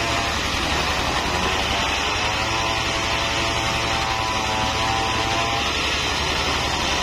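Single-cylinder diesel engine running steadily, driving a circular saw blade that is ripping a mahogany log, with a wavering whine from the blade that fades about a second in, comes back, and drops again near the end.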